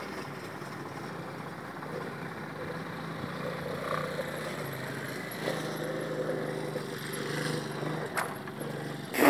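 A recurve bow shot: about eight seconds in, the bowstring is released with a sharp snap, and a louder burst of sound follows a second later. A steady low motor hum lies underneath.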